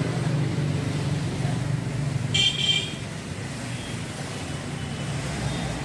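Street traffic noise with a steady low rumble, and a short vehicle horn toot about two and a half seconds in.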